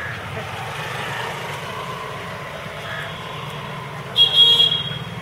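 Steady low traffic rumble, with a short, loud, high-pitched toot about four seconds in.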